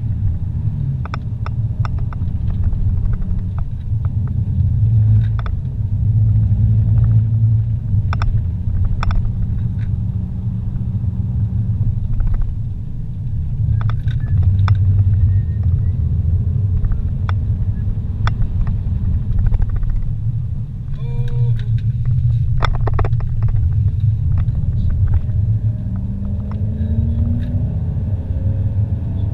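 Car driving on a winding road, heard from inside the cabin: a steady low rumble of engine and tyres, with scattered light clicks and rattles. Near the end the engine note rises as the car speeds up.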